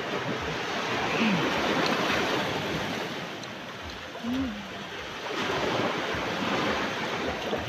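Sea waves washing onto the shore: a steady rush of surf that swells, eases about halfway through, and swells again.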